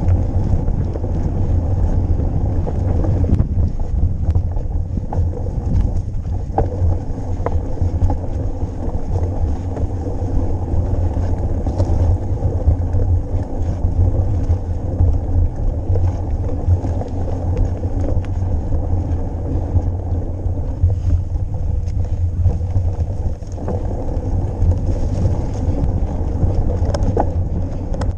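Steady rumble of wind buffeting the microphone while riding a mountain bike, with tyre noise and scattered short clicks and rattles from the bike.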